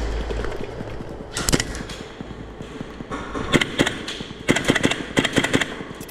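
Airsoft gas blowback rifles firing in short bursts of sharp pops and bolt clacks, with a longer rapid string near the end.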